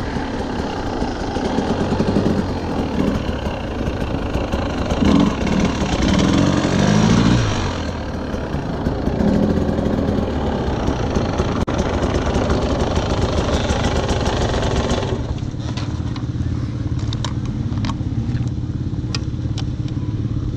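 KTM EXC enduro motorcycle engine running as the bike is ridden over snow, with the revs rising and falling a few times, then settling to a steady low idle about fifteen seconds in.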